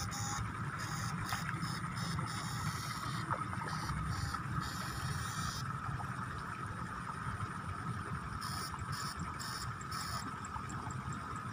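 Backpack electric eel-shocker giving a steady high-pitched whine, with a harsher hiss that cuts in and out as the shocker is switched on and off, over low sloshing of wading through flooded paddy mud.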